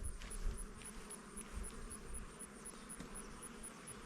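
Honeybees buzzing around an opened hive as a honey frame is shaken off, with a few dull knocks; the colony is disturbed and agitated.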